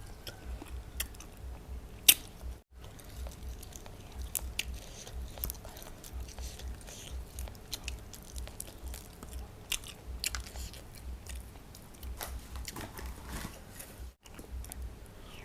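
A person chewing and biting into som tam with pickled crab close to the microphone: crisp crunches and wet mouth clicks, irregular throughout. The sound cuts out completely for an instant twice.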